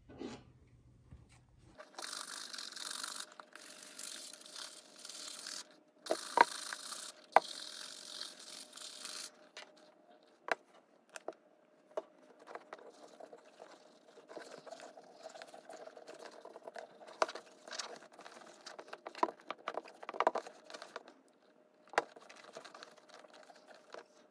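A horsehair shoe brush scrubbing over a leather shoe in long hissing passes for several seconds. After that come scattered clicks and light rubbing as the shoe is handled and shoe conditioner is worked into the leather.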